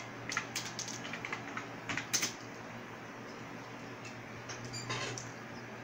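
Typing on a computer keyboard: a quick run of key clicks in the first couple of seconds, then a few more near the end.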